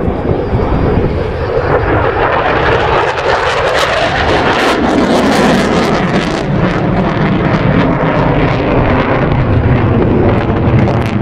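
F/A-18 Super Hornet fighter jet flying past, its engine noise loud throughout and swelling about four seconds in with a crackling rasp.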